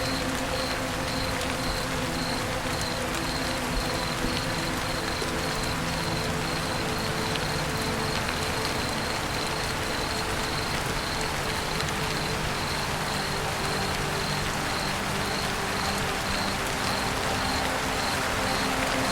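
Steady rain falling on a roof. A faint high tone pulses about twice a second, and low steady tones run underneath.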